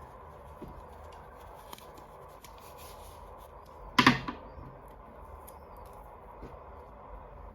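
Faint handling of small toy pieces and packaging, with light taps and rustles, then one loud double clack about four seconds in.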